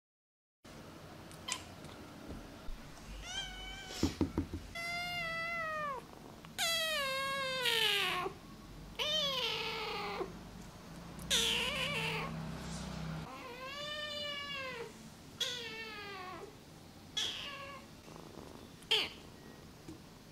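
Ginger-and-white kitten meowing over and over: about nine drawn-out meows of roughly a second each, many rising then falling in pitch.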